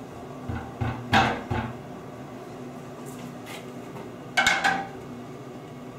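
Short hard knocks and taps of a long spirit level being set and shifted against the edge of a glass shower panel to check it for plumb: a quick cluster of about four about a second in, then another knock or two a little after four seconds.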